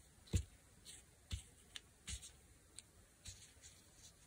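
Scattered soft taps and light rustles of small fabric scraps being picked up, moved and set down on a work table, about eight short handling sounds unevenly spaced.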